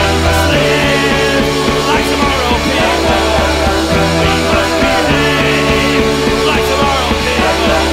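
Psychedelic rock instrumental passage with electric guitar and keyboard over a bass that holds long notes, changing every second or two.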